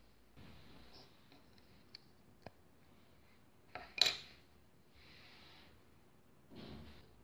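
LEGO plastic pieces being handled on a table: a few small clicks, then one sharp plastic clack about four seconds in, with soft rustling between.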